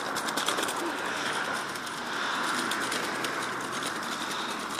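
A child's Space Scooter rolling over brick paving, its small hard wheels and step-pedal mechanism making a steady rattle of quick clicks.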